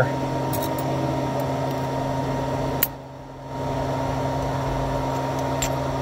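Steady machine hum, like a fan or air-conditioning unit running in a small workshop. Nearly halfway through there is a sharp click, and the hum drops out for under a second before coming back.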